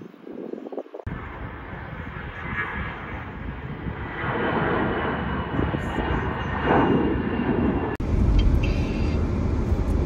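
Jet airliner's engines, a rushing noise with a thin steady whine that starts abruptly about a second in and grows louder. A heavy low rumble comes in suddenly near the end.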